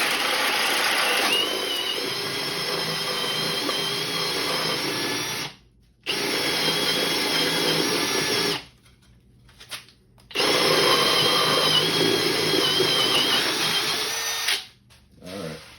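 Milwaukee Fuel Gen 3 brushless hammer drill on speed 2 boring a hole with a 2-inch Diablo Forstner bit: a steady motor whine as the bit cuts. It stops briefly about five and a half seconds in and again for nearly two seconds around nine seconds, then runs once more until it stops near the end.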